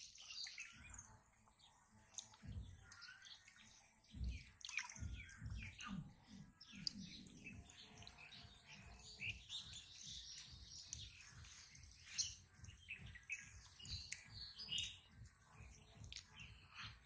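Faint birds chirping, with soft low thuds and water sounds from handling in the shallows, a cluster of them between about two and seven seconds in.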